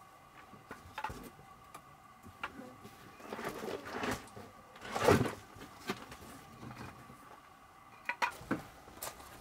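Split firewood logs being stacked onto a metal-framed log holder: irregular wooden knocks and clatters, the loudest about halfway through.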